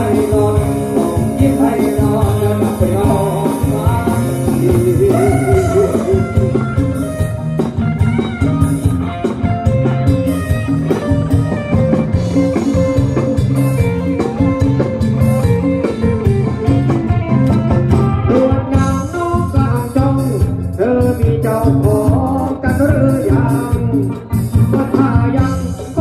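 Live band playing a dance song with a singer and a steady beat.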